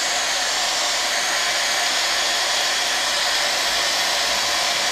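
Heat gun blowing steadily, shrinking high-temperature heat-shrink sleeving onto a wiring loom.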